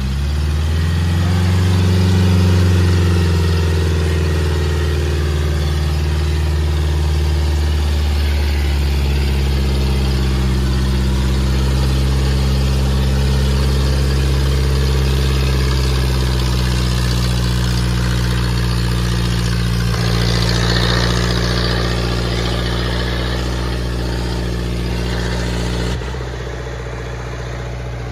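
Massey Ferguson tractor's diesel engine labouring under heavy load as it drags a disc harrow through soft soil. It rises in pitch over the first couple of seconds, then holds a steady, loud drone that gets quieter near the end.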